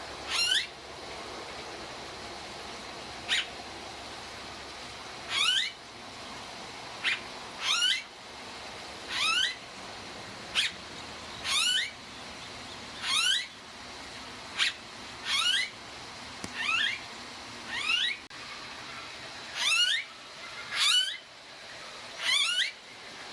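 Blue-faced honeyeater calling over and over, a short sharp call every one to two seconds. Most calls are quick runs of sliding whistled notes; a few are single clipped notes. A steady hiss sits underneath.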